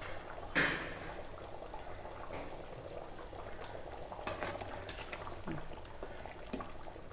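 Thick curry bubbling at a simmer in a metal kadai, quiet and steady, while a spatula stirs it, knocking against the pan about half a second in and again around four seconds.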